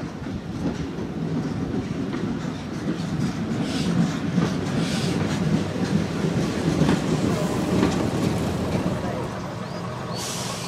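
Single-car diesel railbus running into the station: its wheels click over the rail joints over a low engine sound, growing louder as it passes in the middle and easing off near the end.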